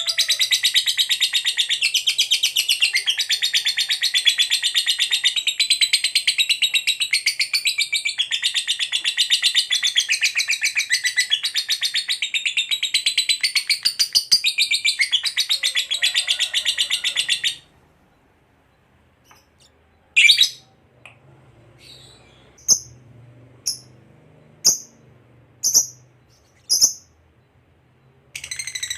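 A lovebird's long 'ngekek' song: a loud, rapid, unbroken high-pitched chattering trill that cuts off abruptly about two-thirds of the way through. After a short pause come about six single short chirps.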